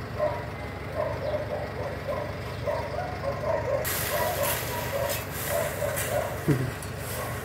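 Scrape and rattle of crushed stone being shovelled off a truck's wooden bed, starting about four seconds in, over a steady low engine rumble. A dog barks repeatedly, about three times a second, throughout.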